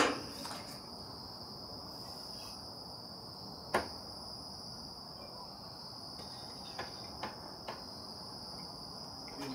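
Crickets chirping steadily in one high, even band. A few sharp clicks cut through: one at the very start, a louder one about four seconds in, and three faint ticks near the end.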